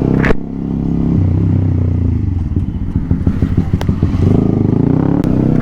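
Motorcycle engine running steadily, with a rough, uneven stretch of close pulses in the middle before it smooths out again.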